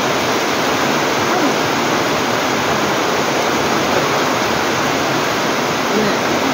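Heavy typhoon rain pouring down steadily, a dense, even hiss.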